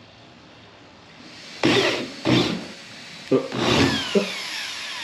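Handheld power drill boring holes through a plastic kayak hull in several short bursts, starting about a second and a half in, its whine falling in pitch as each run winds down.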